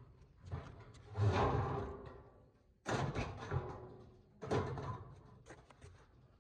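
Long corrugated steel roof sheets being lifted, shifted and set down, clattering and rattling in three loud bouts that each ring on briefly.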